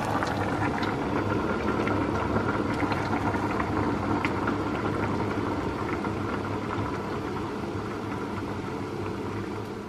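Saucepan of green beans at a rolling boil on an electric hob, a steady bubbling hiss with a low hum under it. The boil eases a little toward the end as the heat is turned down.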